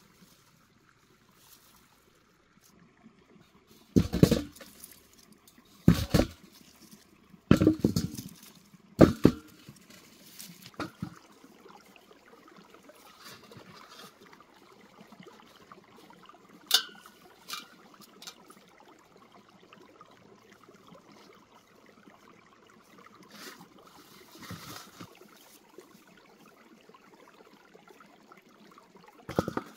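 Potatoes being dug up by hand among the plants: a run of sudden thuds and rustles from the soil and leaves in the first ten seconds or so. About 17 seconds in comes a single sharp knock with a brief ring, then softer rustling.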